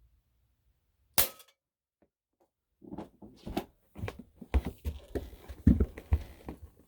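A single sharp shot from a Daisy Powerline 901 .177 pellet air rifle about a second in, fired at a steel can that the pellet goes through. From about three seconds in, a run of irregular knocks and clatter follows.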